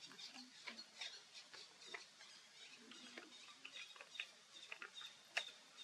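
Baby monkey's faint, rapid irregular squeaks and clicks as it crawls, with one sharper click near the end.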